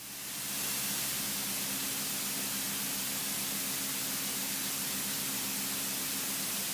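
Steady hiss of a light aircraft's intercom audio feed, with a faint steady engine hum beneath it. The hiss swells up over the first second, then holds level.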